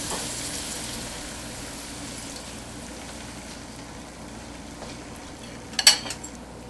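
Beaten eggs, potatoes and onions sizzling in hot oil in a frying pan, the sizzle slowly easing off. Near the end, a quick cluster of sharp clicks.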